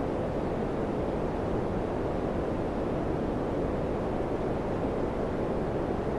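Daikin FCQ100KAVE4 ceiling cassette air conditioner running: a steady, even rush of fan and airflow noise.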